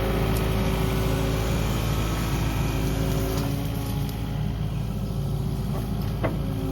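Kubota KX080 mini-excavator's diesel engine running steadily while the machine works, its note easing a little about halfway. A brief sharp sound comes about six seconds in.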